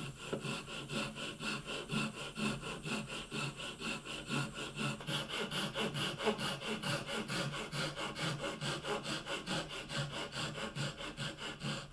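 Fine-toothed Japanese pull saw with no tooth set cutting through a thin strip of wood in quick, even back-and-forth strokes, several a second. The pitch of the strokes shifts slightly about five seconds in.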